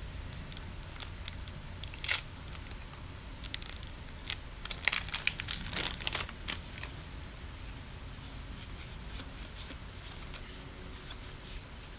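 A Heritage High Number baseball card pack's wrapper being torn open and crinkled by hand, in scattered sharp crackles. They are loudest about two seconds in and again in a dense run around five to six seconds.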